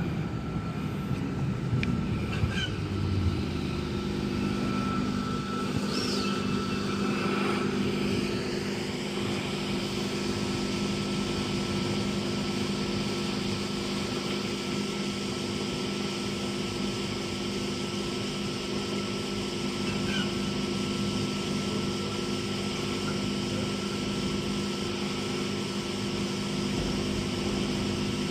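A train standing at the station platform. A low rumble in the first few seconds settles into a steady hum of its onboard equipment, with a faint high whine above it.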